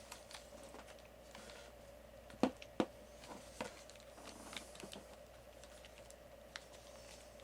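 Faint scattered clicks and taps over a steady hum, with two louder clicks close together about two and a half seconds in.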